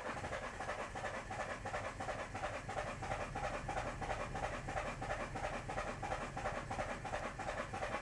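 Starter motor cranking the Renault 1.5 dCi K9K four-cylinder diesel in an even rhythm of about three to four pulses a second, with the engine not firing. It is a no-start that was traced to ball bearings left in the fuel rail.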